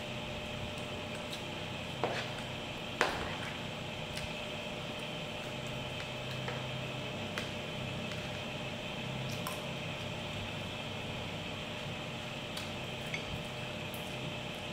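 Close-up eating sounds: chewing of fried fish and rice, with a metal spoon clicking against the plate, the two sharpest clicks about two and three seconds in and a few lighter ones after, over a steady low hum.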